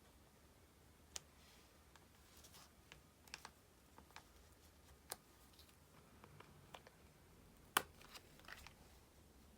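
Sparse, faint clicks and light taps from stickers and a sticker sheet being handled and pressed onto a paper diary page, with the sharpest tick about eight seconds in.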